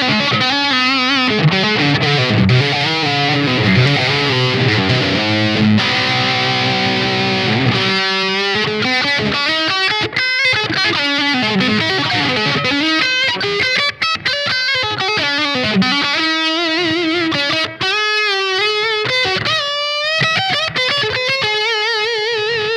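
SQOE SETL960 HH electric guitar with Alnico humbucker pickups being played: dense chord riffs for the first several seconds, then a lead line of single notes with bends and vibrato.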